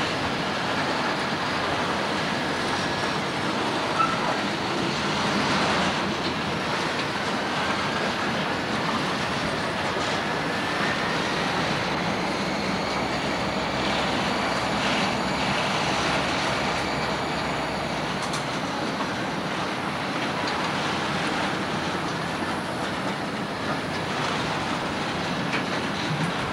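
Diesel locomotive running as it rolls slowly past on the rails, a steady noise with faint, drawn-out high wheel squeals and a sharp click about four seconds in.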